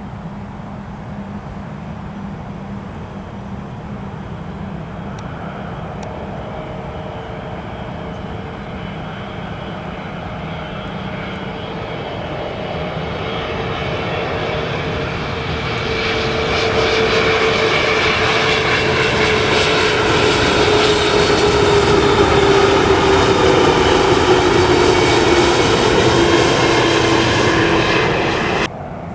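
Boeing 747-400 freighter's four jet engines growing steadily louder as it nears and passes, with a whine that slides down in pitch as it goes by. The sound cuts off suddenly near the end.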